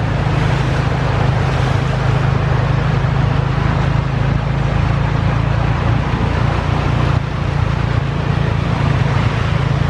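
Steady low engine drone of the hired vehicle driving through a flooded street, under a constant hiss of heavy rain and rushing water.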